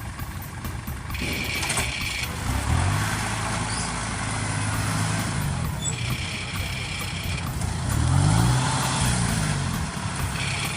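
Farm machine engine running, its pitch rising and falling twice as it is revved. A higher whine comes and goes twice.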